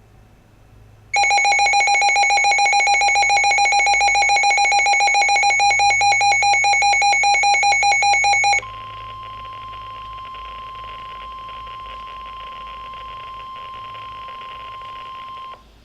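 Midland WR-100 weather radio alerting: its built-in alarm sounds a loud, rapidly pulsing beep for about seven seconds. It then switches to the NOAA Weather Radio broadcast, which carries the steady 1050 Hz warning alarm tone over slight static for about seven more seconds. This is the signal that a warning message is about to be read.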